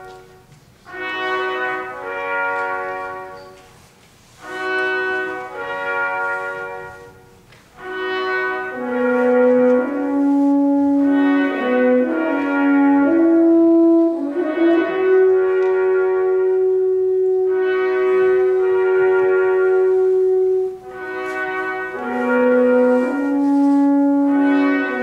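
Brass ensemble of trumpets, horns, euphoniums and tubas playing: short chordal phrases separated by brief pauses, then a longer unbroken passage with one note held for several seconds midway.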